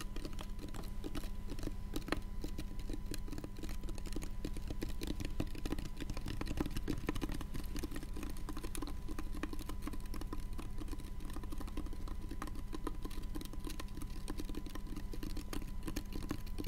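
Rapid, continuous fingertip tapping and clicking on a hard handheld object held close to the microphone. Under it runs a steady faint whine and low hum from a faulty microphone.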